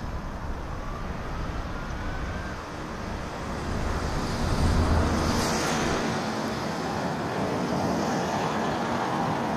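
Road traffic noise, with a vehicle passing close by about halfway through, its low rumble and tyre hiss swelling and then fading.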